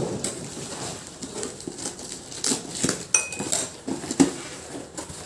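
Small serving bowls and dishes being handled and set down, knocking and clinking against each other in a string of irregular knocks, with one short ringing clink a little past the middle.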